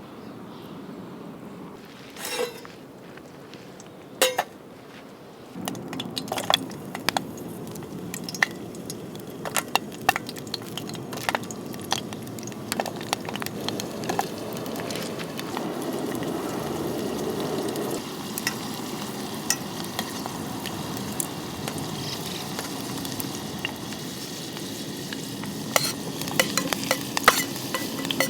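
Food frying and sizzling in an aluminium camp cooker pot, with a utensil stirring and clinking against the metal. The sizzling starts about five seconds in, and there is a quick run of clinks near the end.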